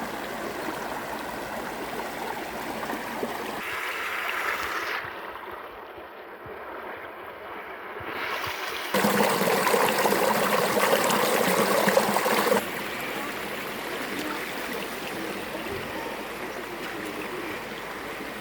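River water flowing over stones, a steady watery noise. Its level shifts abruptly several times and is loudest for about three and a half seconds in the middle.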